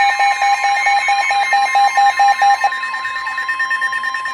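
NOAA Weather Radio's steady 1050 Hz warning alarm tone, announcing a severe thunderstorm warning. Over it a lower beep pulses about five times a second and stops about two and a half seconds in, and a higher steady tone cuts off at the end.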